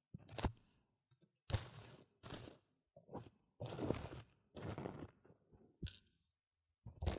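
A piece of tissue held in tweezers rustles and scrapes against the silicone ear of a binaural microphone. It comes as a series of short scratchy bursts with silence between them.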